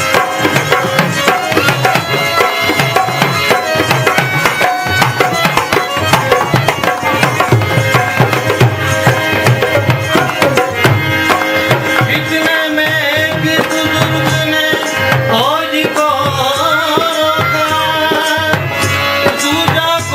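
Devotional bhajan music: a steady, fast tabla rhythm under a sustained instrumental melody, with a more freely bending melody line in the last few seconds.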